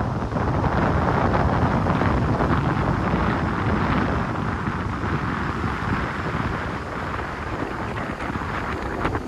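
Stormy sea surf rushing in, with wind buffeting the microphone; the rush eases a little in the second half.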